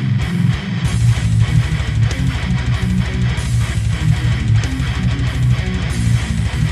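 Instrumental metal: low, heavy electric guitar riffing with bass guitar and drums, no vocals. About a second in, the low end fills into a steady, rapid pulse.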